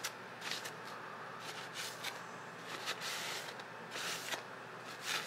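Paper napkin rubbed in repeated wiping strokes along an oiled carbon-steel hatchet blade, a dry rustling swipe about every half second to second. The napkin is wiping off the protective oil coating from shipping.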